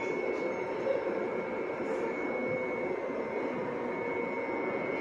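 Steady hum and rush of a subway station platform, with a thin high whine held at one pitch throughout.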